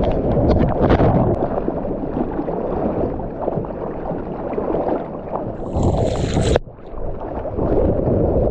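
Sea water rushing and splashing around a surfer's GoPro, with wind buffeting the microphone. About six seconds in a loud hissing splash cuts off suddenly and the sound goes briefly dull and quieter before the rush of water returns.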